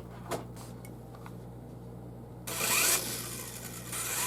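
A few light clicks, then the Syma S5 mini RC helicopter's small electric rotor motors whir up in a short burst about two and a half seconds in, drop back, and start spinning up again near the end with a rising whine.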